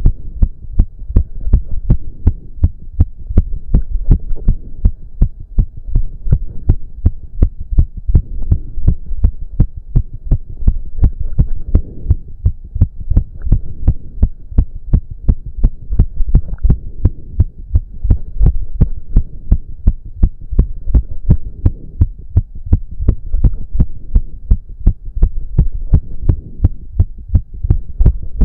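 A man's heart beating fast and hard, raised by intense cardio exercise, a quick even run of low thumps. Heavy breathing swells and fades every couple of seconds underneath.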